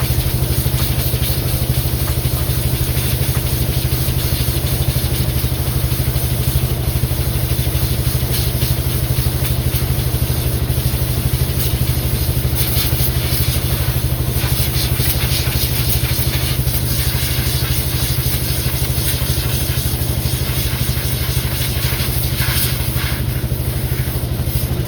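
An engine running steadily at a constant speed, a low, even hum with a fast pulse.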